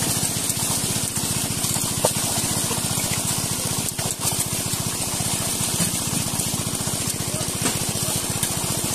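A small engine running steadily with an even, rapid beat, over water splashing as fish thrash in a packed seine net.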